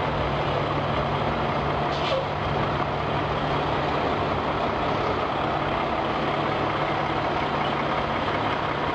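Semi-truck diesel engine running steadily at low speed, with a brief hiss about two seconds in.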